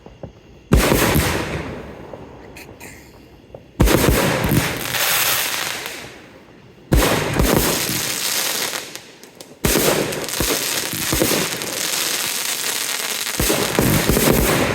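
Fireworks going off: five sharp bangs about three seconds apart, each followed by a few seconds of fading hiss and crackle.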